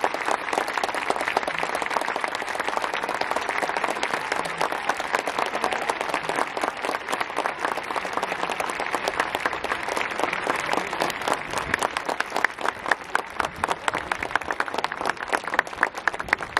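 Football supporters in the stands applauding the players after the match: a dense, steady applause, with sharper single claps standing out over the last few seconds.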